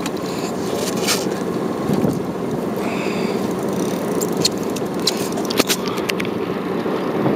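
Fishing boat's engine running steadily, with a few sharp clicks about five and a half seconds in.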